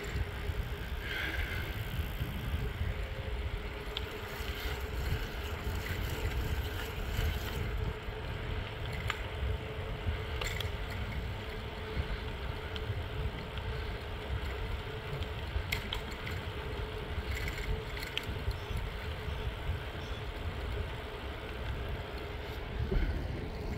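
Wind rumbling on the microphone of a bicycle rolling along a smooth paved trail, with a steady faint hum from the tires on the asphalt and an occasional light click.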